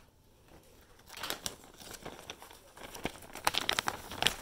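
Clear plastic bag crinkling and rustling as it is handled, in short irregular crackles that grow busier near the end.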